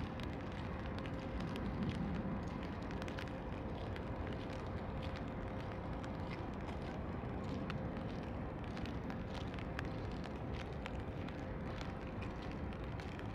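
Steady rain falling, a dense patter of small drop ticks over a low city rumble, with a faint steady hum.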